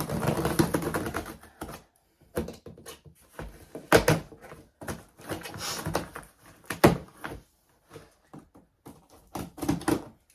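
A large cardboard shipping box being opened and handled: scattered knocks and thuds with short scraping and rustling noises, the two loudest knocks about four and seven seconds in.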